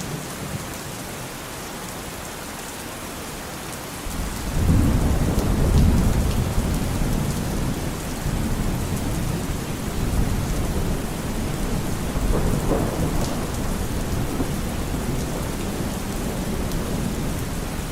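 Steady heavy monsoon rain falling, with a long low roll of thunder that swells in about four seconds in and rumbles on under the rain.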